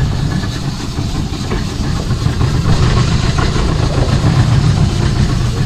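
Outboard motor of a panga fishing boat running steadily, its sound mostly low-pitched and even.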